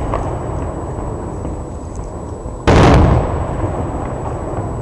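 Fireworks going off: one loud, sudden bang about three seconds in that fades away over the next second, over a steady low rumble.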